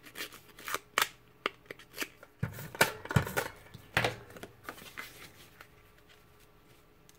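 A handheld paper distressing tool scraped along the edge of a cardstock panel in quick short strokes, fraying it. About halfway through, the paper is set down and slid onto a card base with a few light knocks, and the sounds fade to faint handling.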